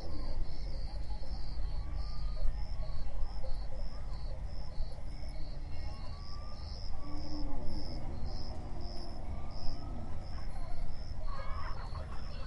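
Wildebeest herd on the move: a steady low rumble of hooves with scattered low grunting calls. Insects chirp in a steady high pulse throughout, about three chirps a second. A sharper, higher animal call comes near the end.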